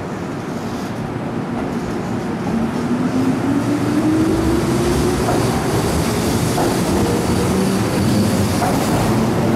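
Keihan 8000 series electric train pulling out of the station, its traction motor whine rising steadily in pitch as it accelerates, over running noise from the cars that grows louder as they pass.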